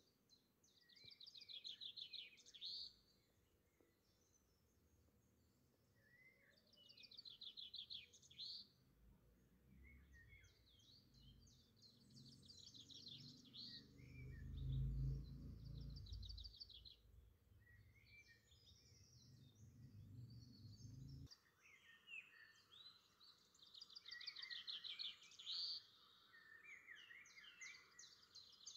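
Faint birdsong: repeated fast high trills and short chirps. A low rumble swells up in the middle and cuts off suddenly about two-thirds of the way through.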